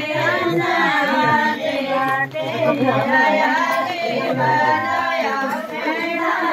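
Women singing a Himachali folk song together, several voices at once.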